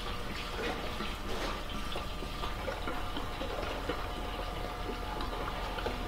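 Fuel pouring from a plastic jug through a flexible spout into a motorcycle's metal gas tank: a steady flow with small irregular glugs, as the tank is filled nearly to the top for winter storage.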